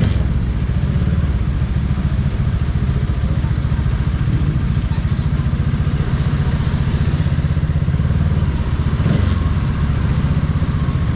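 Bajaj Dominar 400 single-cylinder motorcycle engine running at a steady pace on the road, with road and traffic noise around it.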